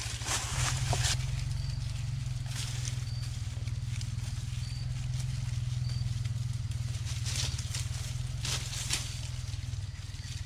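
Goats browsing in dry brush and vines, with brief crackling rustles of twigs and dead leaves at several points. A steady low rumble of wind or handling noise on the microphone runs underneath.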